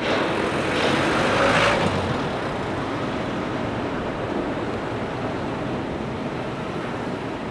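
Steady outdoor city noise, a rushing hiss like traffic, with a louder swell in the first two seconds.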